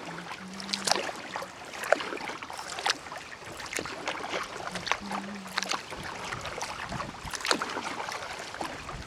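Kayak paddling: water splashing and dripping off the paddle blades at roughly one stroke a second, over wind noise.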